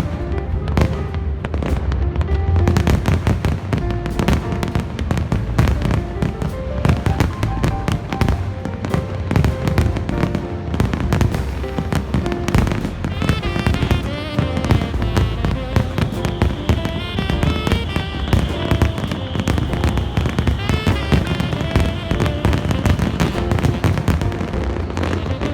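Aerial fireworks bursting densely, many cracks and booms every second, over music.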